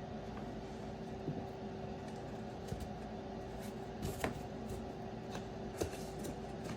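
Scattered light knocks and clicks of cardboard boxes and card packs being handled and lifted out of an opened trading-card case, the sharpest about four seconds in and again near six seconds, over a steady electrical hum.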